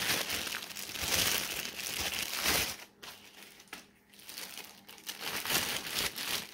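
Thin clear plastic bags crinkling as they are pulled off a pair of small hand weights, in two spells with a short lull in the middle.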